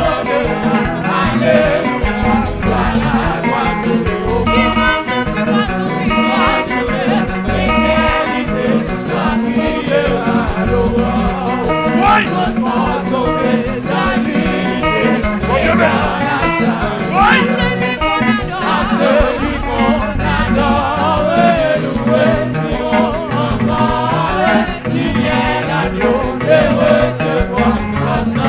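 Live worship band playing: drum kit, electric guitars, bass and keyboard keep a steady beat, with voices singing along.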